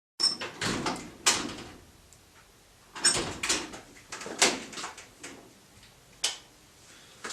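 A series of irregular knocks and clatters, several close together, with quiet gaps between them and no steady machine sound.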